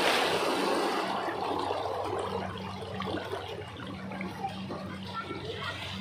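Wave-pool wave surging across the shallow end. A loud rush of water at the start fades within about a second into quieter sloshing and trickling as the wave washes out.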